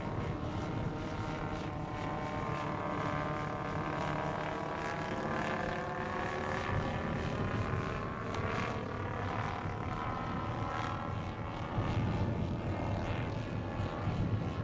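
Four Zenoah 22cc two-stroke petrol engines of a 1/8-scale Handley Page HP42 model airliner droning in flight, their several slightly different pitches gliding slowly up and down together. The sound gets a little louder near the end.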